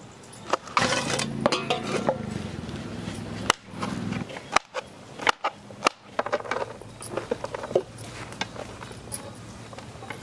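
Kitchen knife chopping green beans on a wooden cutting board: a run of sharp, uneven taps of the blade on the wood, over background noise that swells between about one and four seconds in.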